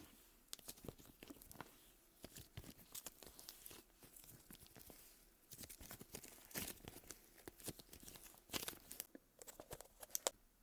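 Slime being squeezed and pulled apart by hand close to the microphone, making quick, irregular sticky clicks and pops with a few louder pops toward the end.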